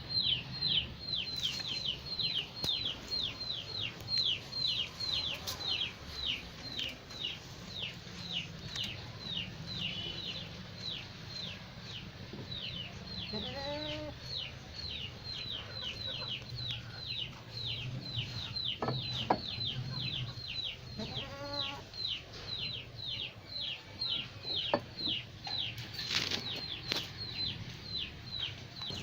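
A bird chirping steadily and rapidly, about three short falling chirps a second, over a low hum. Goats bleat briefly twice, about halfway through and again a little later.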